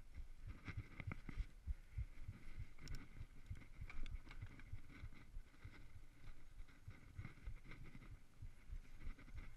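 Mountain bike rolling down a dry dirt trail: tyres running over the dirt and the bike rattling over bumps, with a few sharper knocks, the loudest about four seconds in. Low, uneven rumble of wind on the microphone underneath.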